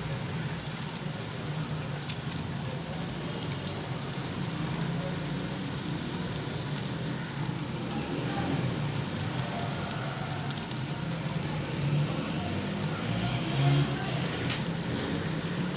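Beef curry simmering and sizzling in an aluminium pressure-cooker pot over a gas flame: a steady hiss with a low hum beneath and a few faint ticks.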